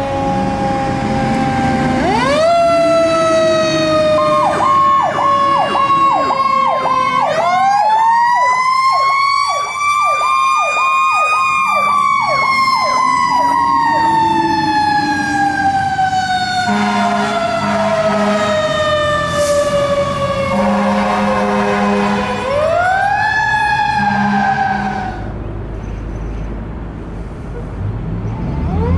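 Fire engines' electronic siren sounding Powercall tones: long wails that rise quickly and fall slowly, with a stretch of rapid repeated pitch dips early on the first engine. The sound drops back briefly near the end as the scene changes, and a new rise starts at the very end.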